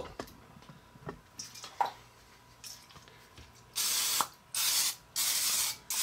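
Aerosol can of Pam cooking spray hissing in about four short bursts, each about half a second long, near the end, as it coats a plastic tray. A few faint clicks come before it.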